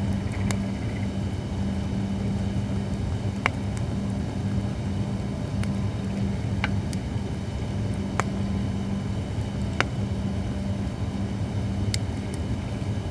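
Holly firewood burning, giving sharp single crackling pops at irregular intervals, about nine of them, over a steady low rumble.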